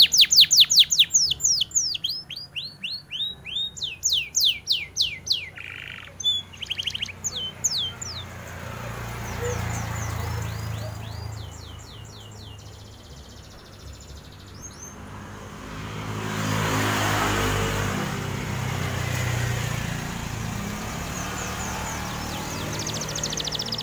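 Domestic canary singing fast, loud trills of rapidly repeated downward-sweeping notes, then shorter broken phrases. Midway a vehicle passes on the street, its noise swelling and fading with the loudest point about two-thirds through, and the canary starts trilling again right at the end.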